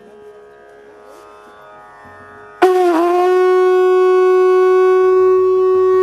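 Faint background music with a steady drone, then a conch shell (shankh) blown in one long, loud note, starting a little over two seconds in and held for about four seconds with a brief waver at its start.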